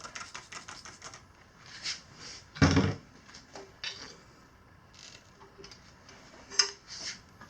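Metal tire irons clicking and scraping against the rim and a stiff knobby tire during a tire change, with one louder knock about two and a half seconds in and a sharp click near the end.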